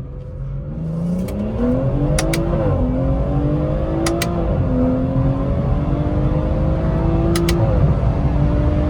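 BMW 340i's turbocharged inline-six accelerating hard, its pitch climbing and then dropping at three upshifts. Just before each shift comes a sharp double click from the magnetic paddle shifter, which the driver finds loud.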